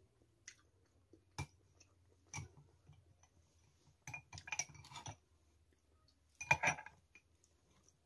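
Metal spoons clinking against glass bowls and ceramic plates: scattered short clinks, with a quick flurry about four seconds in and another about six and a half seconds in.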